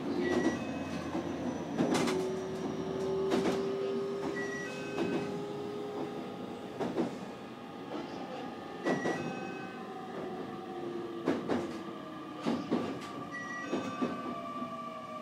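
Electric commuter train running, heard from just behind the driver's cab: sharp wheel clicks over the rails every second or two, over motor tones that drift and glide in pitch. Short high electronic beeps come back every four to five seconds.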